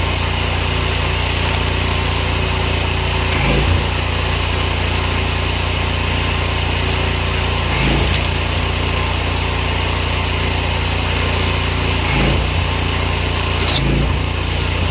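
Pressure washer running, its small engine droning steadily under a continuous hiss of spray, with a brief change in the sound about every four seconds.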